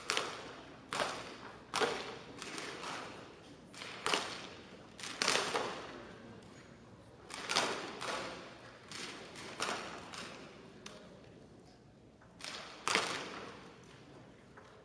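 Spring-air BB guns firing on a shooting line: a dozen or more sharp shots at irregular intervals from several shooters, each with a short echo in the large hall.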